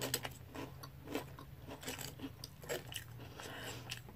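Close-up chewing of crunchy French toast cereal: irregular crisp crunches and bites with no steady rhythm.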